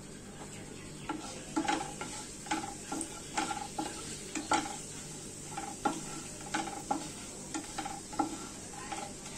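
Wooden spatula stirring whole cumin seeds, dried red chillies and bay leaves in hot oil in a non-stick kadai: a steady sizzle under repeated scraping strokes against the pan, about two a second. This is the tempering stage, the whole spices blooming in the oil.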